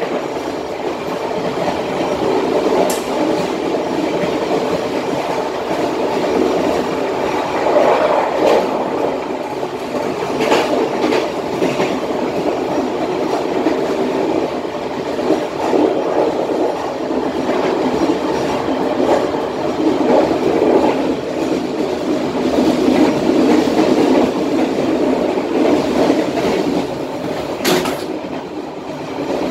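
Passenger train car running at about 77 km/h, heard from the rear end of the last car: a steady rumble and rattle of wheels on the rails. A few brief sharp clicks come through, the clearest near the end.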